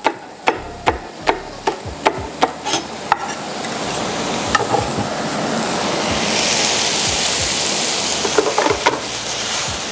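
A knife chopping spring onion on a cutting board, about nine quick even chops over the first three seconds, then food sizzling in a frying pan, the sizzle building and holding steady.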